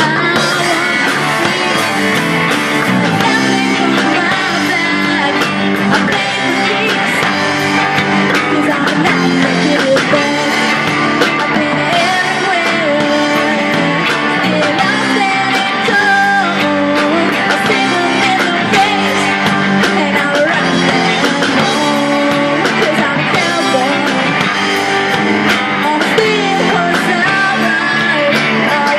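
Live rock band playing a rock song: a woman singing over electric guitars, bass guitar and a drum kit.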